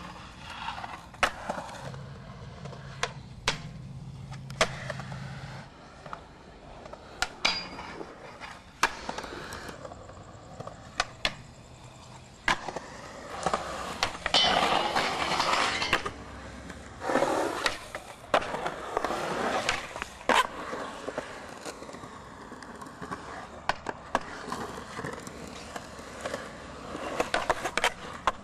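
Skateboard on concrete: wheels rolling, sharp clacks of tail pops and landings, and the trucks scraping along steel rails in several grinds, the longest and loudest about halfway through.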